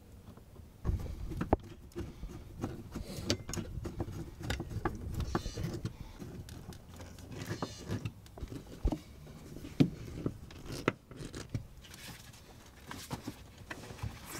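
Hands handling and fitting a fuel pump access cover and a felt floor insulation pad back into place: irregular small clicks, taps and rustling, beginning about a second in.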